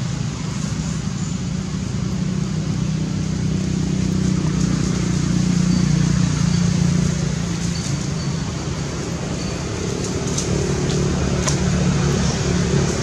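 Steady low engine hum, like a motor vehicle, growing louder around the middle and easing off again, with a couple of faint clicks near the end.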